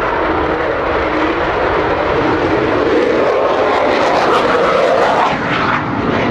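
Avro Vulcan XH558's four Rolls-Royce Olympus turbojets running loud in a close fly-past, with the type's characteristic howl: a wavering tone over the jet noise that climbs and swells in the middle, then drops away suddenly about five seconds in.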